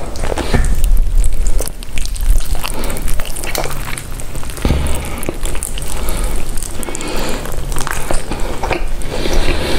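Close-miked eating: chewing and biting into food, with many small crackling clicks and low thuds of the mouth working.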